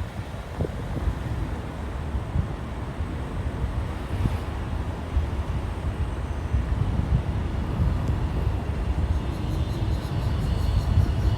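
Low rumble of a moving vehicle with wind buffeting the microphone, growing a little louder near the end.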